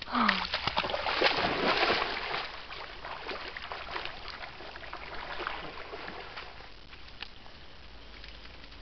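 Maremma sheepdog splashing through shallow water: loud, busy splashing for the first two seconds or so, then fading to lighter, scattered splashes and trickling.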